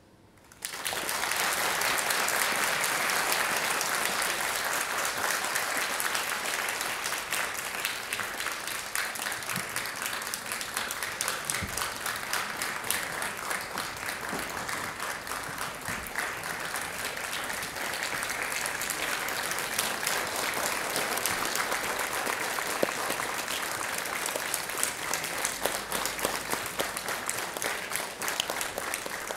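A large audience applauding at length, an ovation that starts suddenly about half a second in and keeps up steadily to the end.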